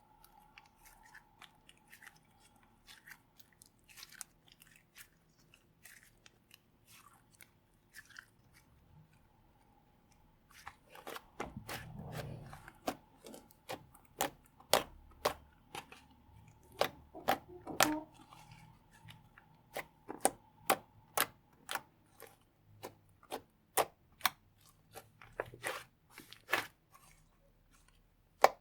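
Slime being handled and pressed, giving short sharp clicks and pops. The clicks are sparse and faint at first, then louder and more frequent from about a third of the way in.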